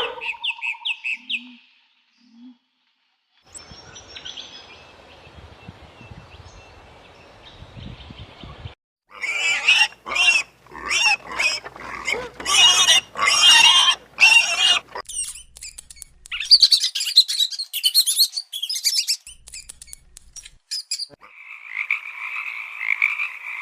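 A run of different animal calls one after another: a stretch of loud, repeated calls in the middle, then high chirping, then frog croaking near the end.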